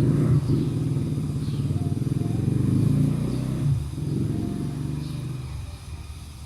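An engine running with a low rumble that starts suddenly, holds for about four seconds, then fades away.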